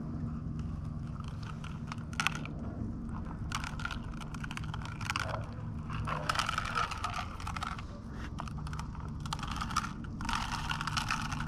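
Small gravel and pebbles clicking and rattling in quick clusters as a rubber sluice riffle mat is tapped and bent to knock its trapped material into a plastic gold pan.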